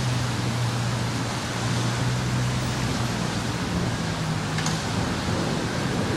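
Steady rush of strong thunderstorm wind, with a low steady hum underneath.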